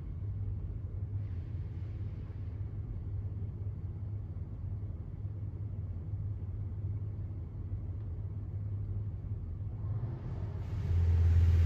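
WashWorld Razor Edge touchless car wash running over the car, heard from inside the cabin as a steady low rumble that grows clearly louder near the end.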